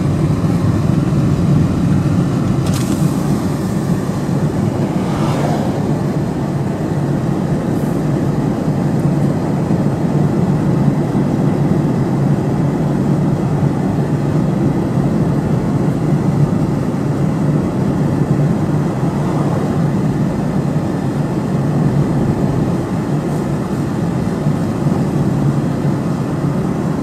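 Steady low road and engine noise heard inside the cabin of a moving car.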